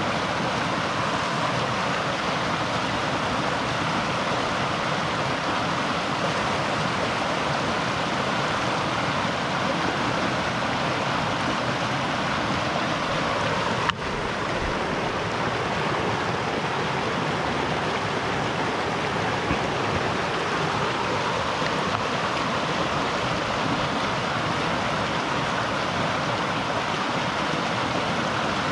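River water rushing steadily, with one brief click about halfway through.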